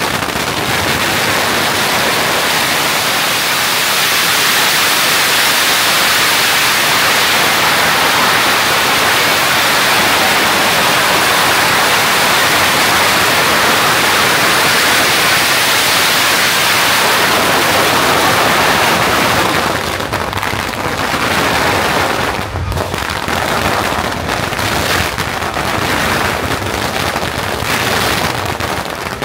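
A large mat of strung firecrackers burning on the street, going off in one continuous, dense crackle. About two-thirds of the way through it thins into many separate bangs.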